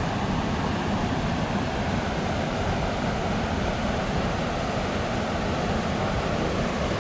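Steady rushing noise of flowing river water, with wind buffeting the microphone.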